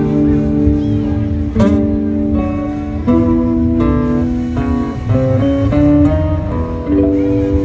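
Acoustic guitar strumming chords and letting them ring, with a new strum every second and a half to two seconds.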